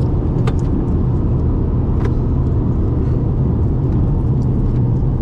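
Steady engine and road noise heard from inside a moving 2004 Subaru WRX, a dense low rumble, with a couple of brief clicks about half a second and two seconds in.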